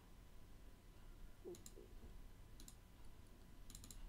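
Faint computer mouse clicks, three of them about a second apart, each a quick double click-clack of press and release.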